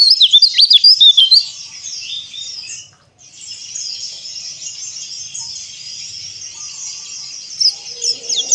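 White-eyes (pleci, Zosterops) singing. For about a second and a half there are loud, rapid whistled notes sweeping up and down. Then comes a dense, steady twittering of many birds, which breaks off briefly about three seconds in and starts again.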